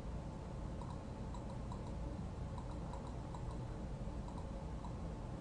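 Faint, irregular clicking from working at a computer, over a steady low hum.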